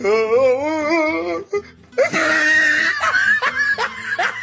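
A young woman's voice wailing on a long, wobbling note. About two seconds in comes a high-pitched squeal, which breaks into a run of short laughs.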